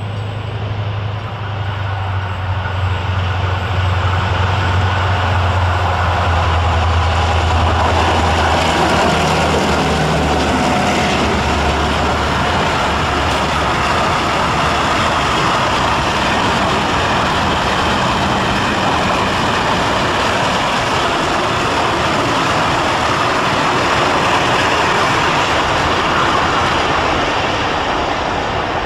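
Freight train hauled by an EMD G26C diesel-electric locomotive passing: a deep, steady engine drone for about the first ten seconds, then a continuous rumble of the mixed freight wagons rolling by, easing slightly near the end.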